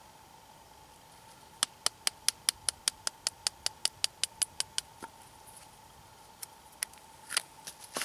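Knife blade scraping down a stick of resinous fatwood held upright on a stump: a quick run of short, crisp scrapes, about five a second, for about three seconds, then a few single scrapes near the end.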